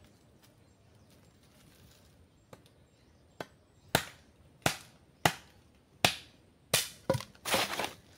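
A hand tool striking wood: a light tap, then about seven sharp blows roughly half a second apart, coming quicker near the end, as pieces are fixed to a tree for footholds.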